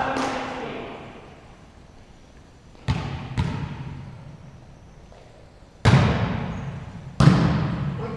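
A volleyball being struck during a rally: four sharp smacks, a close pair about three seconds in, then two louder ones about six and seven seconds in. Each rings out in a long echo off the large gym hall.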